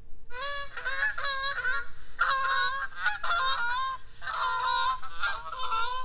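Canada geese honking, many calls in quick succession.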